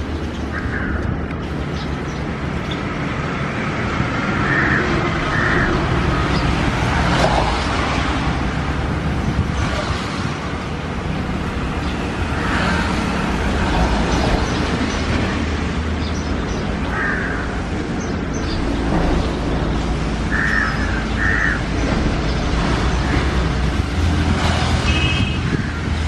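Steady rumble of road traffic, with short bird calls now and then, a few of them in pairs.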